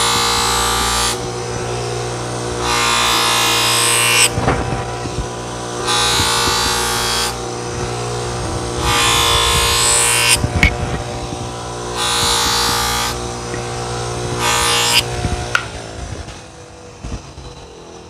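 Small bench grinder motor humming steadily while a pocket-knife blade is drawn against its spinning wheel in six passes, each a loud hiss of about two seconds, about every three seconds. The grinder stops and goes quiet near the end.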